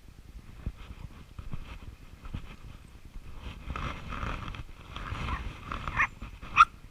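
Dogs scuffling at play, with irregular soft knocks and rustling, then a dog gives two short, sharp yaps near the end.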